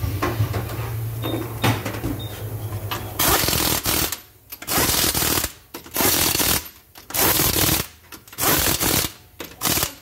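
Impact wrench tightening a car's wheel lug nuts in short bursts. About six bursts, each under a second long, start about three seconds in.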